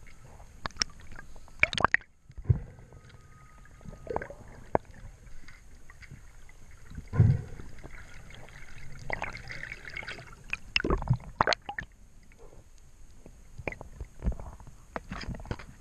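Underwater spearfishing sounds while a barracuda is speared and hauled in on the shaft line: scattered sharp clicks and knocks of gear, with gurgling bubbles. A heavy low thump about seven seconds in is the loudest sound.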